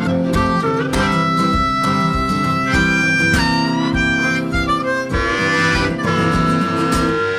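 Background music: upbeat acoustic country-style tune with harmonica over strummed guitar and a steady beat.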